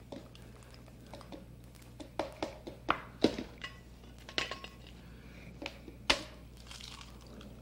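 Scattered light clicks and taps of eggs, dishes and utensils as whole eggs and yolks are added to an electric blender jar. The sharpest tap comes about six seconds in.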